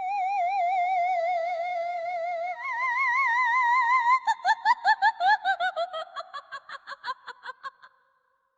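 Ghostly humming voice sound effect: one high note with an even, wavering vibrato that steps up in pitch about two and a half seconds in. About four seconds in it breaks into a rapid laugh of about five falling 'ha's a second, which fades out just before the end.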